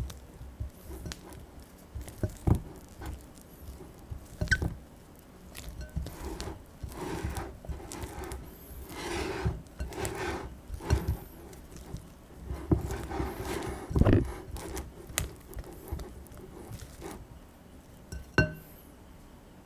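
Rested, refrigerated madeleine batter being stirred and scraped in a bowl, in uneven stretches of scraping, with a few light knocks of the utensil against the bowl.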